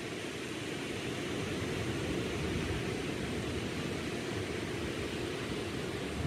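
Small waves breaking and washing onto a sandy beach: a steady, low rushing noise of surf.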